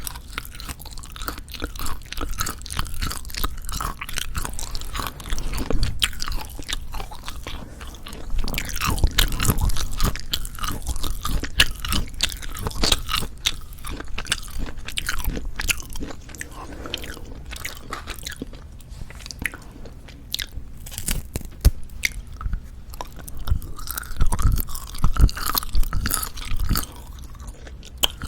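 Close-miked chewing of Jeju black pork jerky: dry, chewy meat torn and worked between the teeth, with many irregular moist clicks and crackles and occasional soft low thumps.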